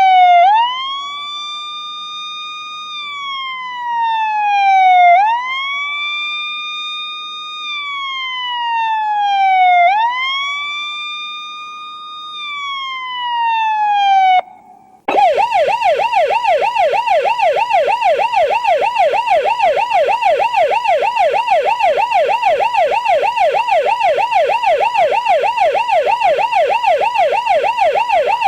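Electronic police siren in wail mode: three slow cycles, each rising quickly in pitch, holding, then sliding slowly down. About halfway through it cuts out briefly and switches to the fast yelp, sweeping up and down about three times a second.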